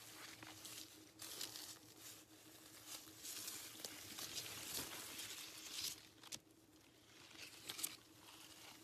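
Faint, irregular rustling and crackling of grapevine leaves and clusters being handled, with a faint steady hum underneath.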